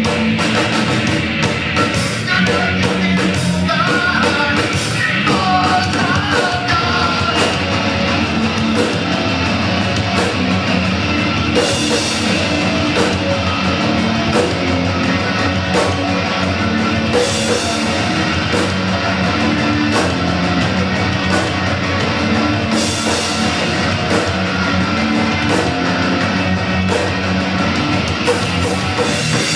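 Rock band playing live, loud and dense, with electric guitar and a drum kit keeping a steady beat.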